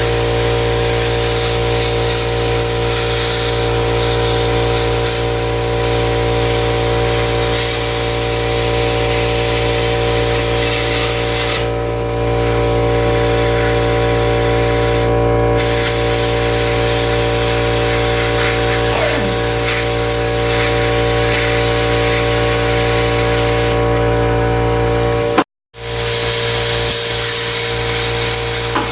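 Plasma cutter cutting through a car's sheet-steel firewall: a steady hiss of air over a constant machine hum. The sound cuts out completely for an instant near the end, then resumes.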